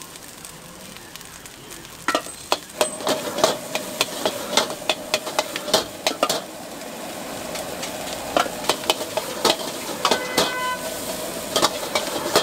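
Egg fried rice sizzling in a steel wok over a gas burner while a metal wok ladle scrapes and clanks against the pan. The clanks start about two seconds in and come irregularly, several a second.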